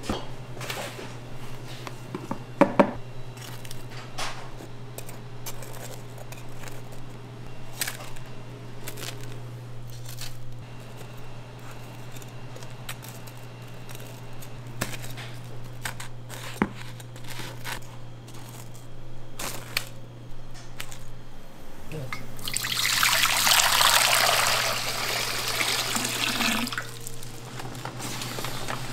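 Shop kitchen work sounds: a steady low hum, scattered clicks and knocks of utensils, and a loud rush of pouring liquid lasting about four seconds near the end.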